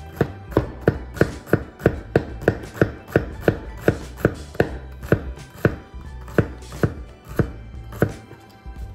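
Bob Kramer Carbon 2.0 8-inch carbon-steel chef's knife chopping shallots on a wooden cutting board: sharp, regular knocks of the blade on the board, about three a second, spacing out a little in the second half.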